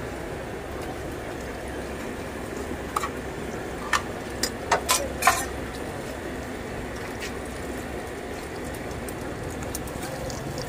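Hot oil sizzling and bubbling steadily in a large karahi around aloo parathas being deep-fried. Several sharp clicks stand out between about three and five and a half seconds in.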